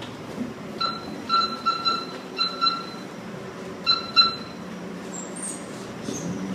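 Footsteps hurrying down a ship's interior stairway, about eight quick steps, mostly in pairs, each sounding a short high-pitched note. A steady machinery hum runs underneath.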